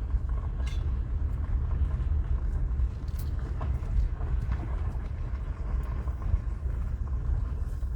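Steady low rumble of a vehicle being driven, with engine and road noise heard from inside the cabin, and a few faint knocks.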